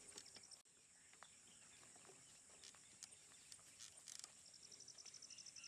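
Faint chorus of insects: a steady high-pitched buzzing, with a rapid pulsed trill near the end and a few soft clicks.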